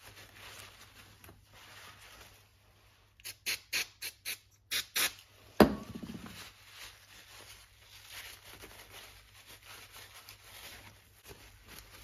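Shop rag rubbing grease off a ratchet's cover plate: faint rubbing, with a quick run of about seven short squeaks a few seconds in, followed by one sharp knock.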